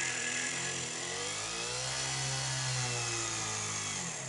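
Foredom flexible-shaft rotary tool running with a steady whine as it drills a hole into a point of a wooden piece. Its pitch rises and then falls back around the middle as the speed changes.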